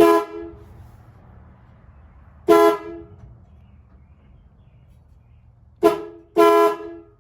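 1954 Kaiser Darrin's car horn honking four short times, the last two close together, as the newly wired horn button makes contact.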